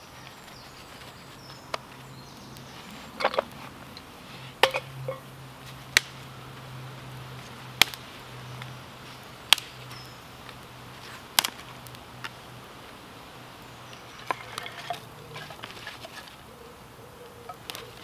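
Small campfire of damp twigs catching, with sharp pops and snaps every second or two. Underneath runs a steady low insect buzz.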